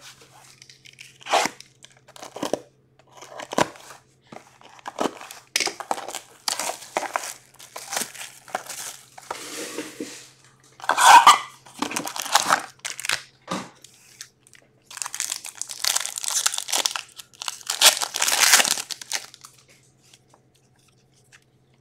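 Plastic shrink wrap crinkling and tearing as a hockey card box is unwrapped, then foil card packs being ripped open, crackling on and off and going quiet near the end.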